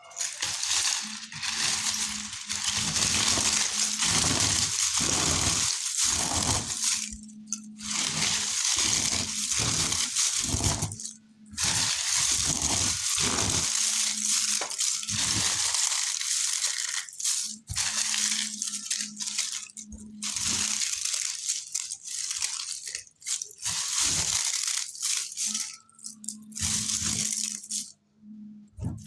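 Dry multani mitti (Fuller's earth clay) being crushed and crumbled: a dense, crisp crackling that runs in long stretches with short breaks. A low hum comes and goes underneath.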